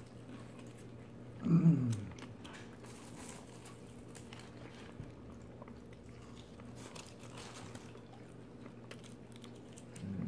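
Faint chewing and small clicking mouth sounds of someone eating a Whataburger meal, over a steady low hum. A brief voiced sound, like a short hum, comes about a second and a half in and is the loudest moment.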